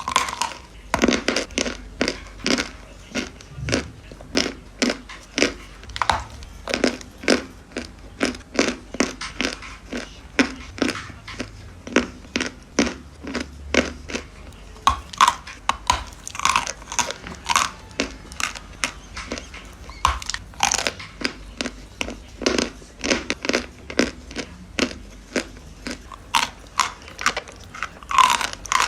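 Close-miked biting and chewing of crunchy chalk: sharp crunches about one or two a second, some bites louder than others.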